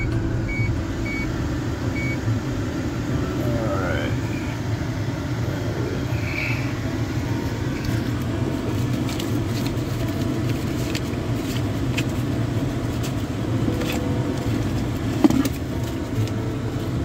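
Steady low hum of a car heard from inside the cabin, with the engine and air conditioning running. A few short high beeps sound in the first two seconds.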